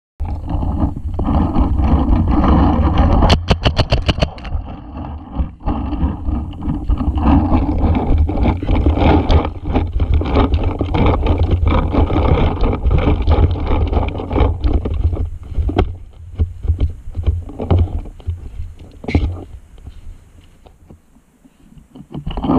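Heavy rumbling wind buffeting and knocking handling noise on a fast-moving camera. A rapid run of about a dozen sharp clicks comes about three seconds in. The rumble eases off in the last few seconds.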